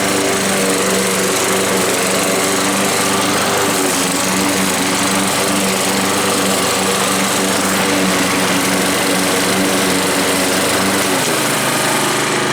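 Honda HRX537 self-propelled lawnmower's single-cylinder four-stroke petrol engine running steadily under load, blade cutting grass as the mower drives forward on its hydrostatic drive. The engine note dips slightly about eleven seconds in.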